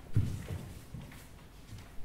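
Bare feet thudding dully on a stage dance floor as dancers step and stamp. The loudest thuds come in the first half second, with softer ones later.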